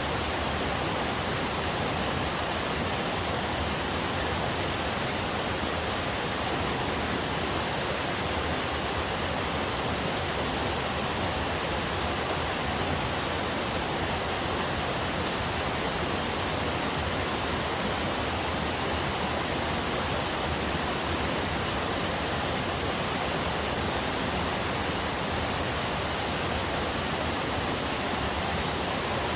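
Small forest waterfall and river, water rushing steadily with an even, unchanging noise.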